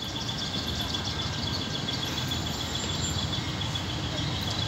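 Outdoor background noise: a steady low rumble with a high, rapidly pulsing chirp running through it.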